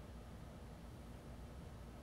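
Casablanca Lanai ceiling fan running, faint and steady: the soft rush of the spinning blades with a low, slight hum from its spinner motor.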